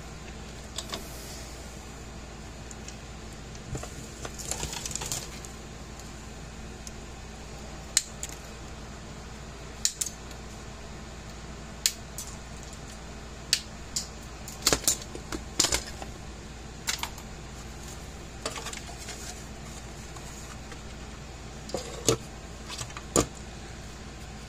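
Hand tools and parts handled on a wooden workbench: scattered sharp clicks and clacks as needle-nose pliers and solder are set down and a fence-charger circuit board and its plastic case are picked up, with a brief rustle about four seconds in, over a steady low hum.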